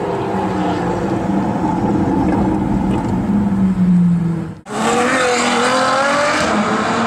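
Supercar engine running loud, then an abrupt cut about four and a half seconds in to another supercar's engine pulling hard, its pitch climbing.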